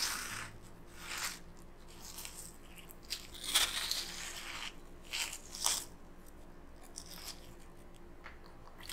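Metal melon baller scooping into watermelon flesh: short, crisp, wet crunching scrapes, about five of them, the loudest about three and a half seconds in.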